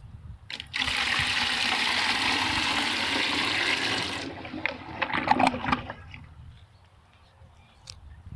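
Homemade toilet flushing: a loud rush of water starts suddenly about a second in and stops abruptly after about three seconds, followed by a couple of seconds of splashing and gurgling that die away. The owner says nothing is coming out of the drain and blames a chip bag partly clogging it.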